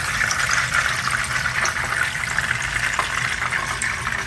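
Fish frying in hot oil in a shallow pan: a steady sizzle with scattered small pops and crackles.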